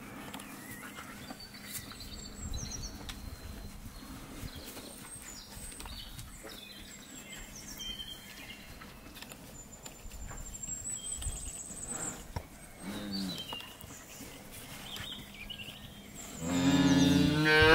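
Calves mooing: a short moo about thirteen seconds in, then a loud, long moo near the end. Birds chirp faintly in the background.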